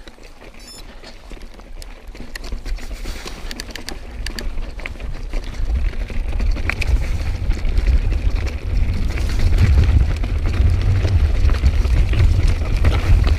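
Wind buffeting a GoPro's microphone on a mountain bike descending a rocky trail, the low rumble growing louder as the bike picks up speed, with the tyres and bike clattering over loose stones in many quick clicks and rattles.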